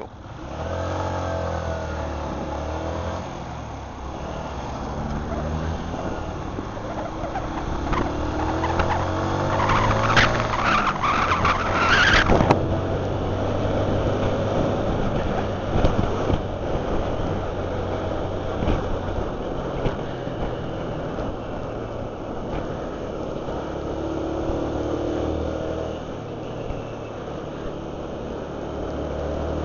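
Honda CG motorcycle's single-cylinder engine pulling away and accelerating through the gears, its pitch rising in steps, then running on at road speed. A loud rush of wind noise on the microphone builds up and cuts off suddenly about twelve seconds in. The engine pitch rises again near the end.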